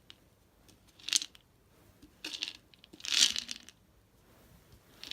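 Three short rustling, rattling noises about a second apart: a dog nudging at a food-puzzle toy with its dinner inside.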